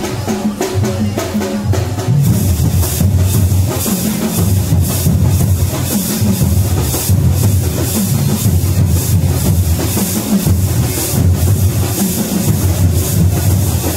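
Music with a heavy drum-kit beat, thick bass-drum pulses under a steady higher beat that comes in about two seconds in.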